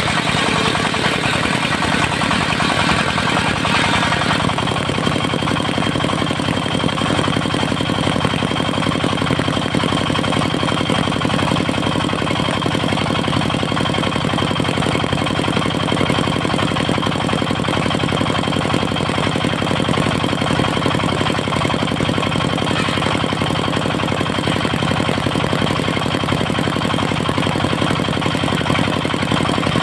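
Diesel engine driving a portable circular sawmill, running steadily. About four seconds in, a rushing noise stops and a steady high whine carries on over the engine.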